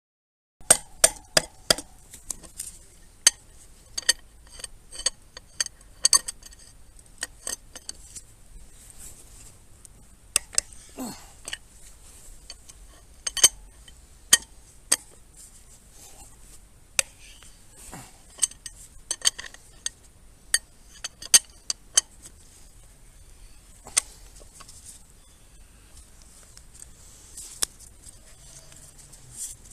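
Metal tools and motorcycle hub parts clinking and knocking together in a long run of sharp, irregular metallic taps, some of which ring briefly. The taps are thickest in the first few seconds and grow sparser toward the end.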